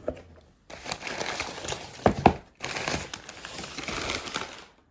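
Plastic packaging crinkling and rustling as a packed coat is handled, in two long stretches with a short break, with two sharp knocks just after two seconds in.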